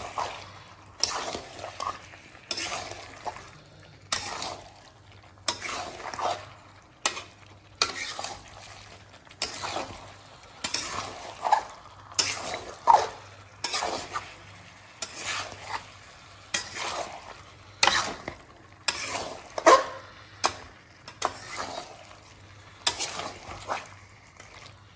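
A spatula scrapes and stirs chicken pieces around a metal wok (kadai), about one stroke a second, with the frying sizzle underneath. The chicken is being dry-fried in its masala (kasa).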